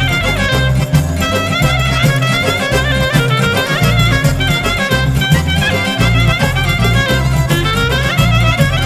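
Upbeat Albanian folk music with a violin carrying a wavering, ornamented melody over a steady pulsing bass beat.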